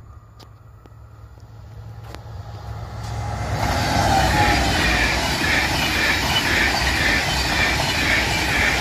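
TGV Océane double-deck high-speed train approaching and passing: a rumble that grows steadily louder and becomes a loud, steady rush of wheels on rail from about three or four seconds in.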